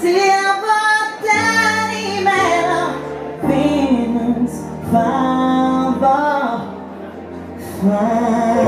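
A woman singing a pop ballad live into a microphone, accompanied by a Yamaha stage piano played through PA speakers. The music softens briefly about three-quarters of the way through, then the voice comes back in.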